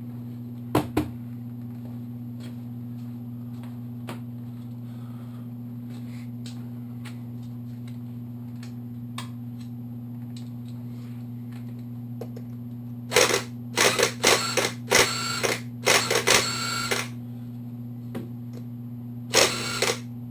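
A small impact driver hammering in a series of short bursts, starting about two-thirds of the way in and again near the end, on a nut of a KLR650 engine's clutch-side parts that it does not break loose. Before that, only light clicks of tools and parts over a steady low electrical hum.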